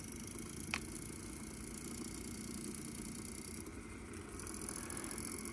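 VHS tape cleaning machine running steadily, its motor winding the tape from reel to reel past a cleaning cloth, with a faint steady whine. A single light click comes just under a second in.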